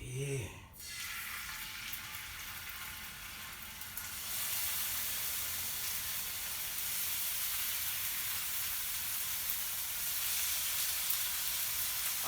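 Seasoned salmon fillets sizzling in a hot skillet, the sizzle growing louder about four seconds in and then holding steady.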